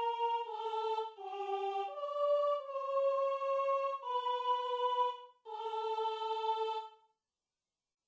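Notation-software playback of a single solo voice line in a synthesized voice sound: a slow phrase of about six held notes, one of them longer than a second, ending about seven seconds in.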